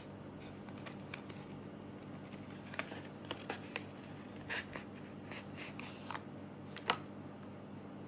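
A paper envelope being handled and opened and a card slid out of it: a series of short, dry paper rustles and scrapes, the sharpest about seven seconds in.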